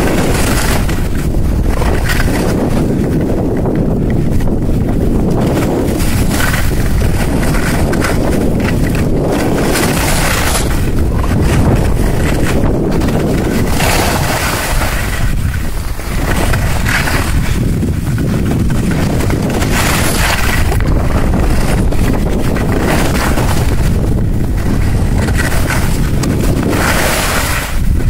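Heavy wind noise buffeting the microphone while skiing downhill, with the hiss of skis on snow swelling and fading every few seconds.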